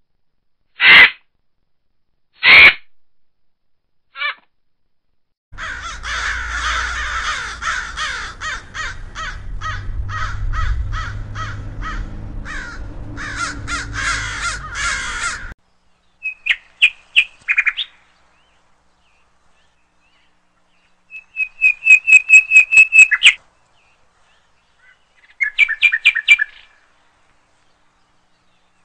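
A crow giving harsh distress caws while pinned down by a hawk: a few loud single caws, a long stretch of rough noise and scuffling, then rapid runs of short calls repeated three times.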